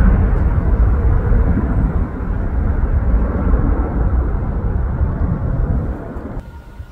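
Twin-engine jet airliner climbing away after takeoff, its jet engine roar slowly fading as it recedes. Near the end the roar drops off sharply to a much quieter background.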